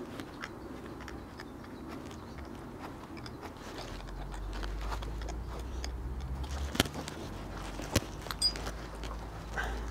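Casting moulds being handled and opened by hand: gritty crunching and scraping with small clicks, and a few sharp metal knocks about seven and eight seconds in. A low rumble sits under it from about halfway.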